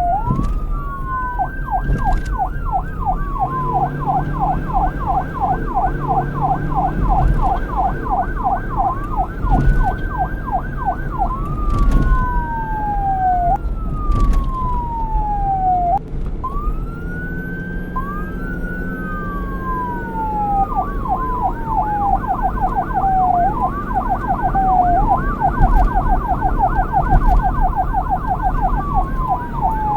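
Police car siren switching between a slow wail, each sweep rising and falling over a few seconds, and a fast yelp of rapid repeated sweeps. It goes to the yelp a second or two in, back to the wail around nine seconds, and to the yelp again a little past twenty seconds. A low rumble runs beneath.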